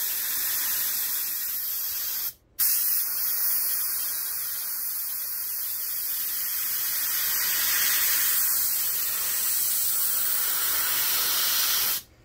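Airbrush hissing steadily as it sprays a fine line of white paint with its nozzle cap off. The air cuts out briefly about two seconds in, then runs on and stops suddenly near the end.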